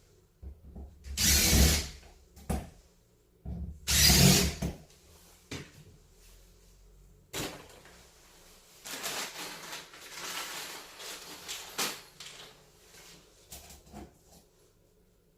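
Power drill driving screws into plywood in two short runs, then quieter knocks and scraping as the board is handled.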